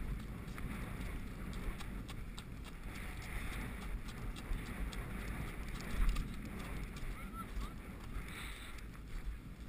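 A horse's hoofbeats as it moves at pace over grass and gravel, heard from a rider-mounted action camera, with a steady wind rumble on the microphone and irregular knocks throughout.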